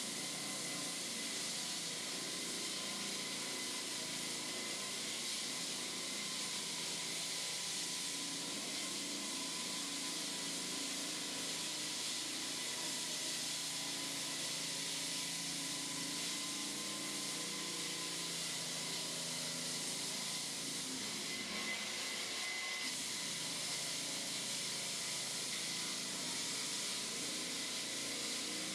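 Three-phase electric slab saw running steadily while cutting concrete: an even high hiss with a steady whine underneath, unchanging throughout.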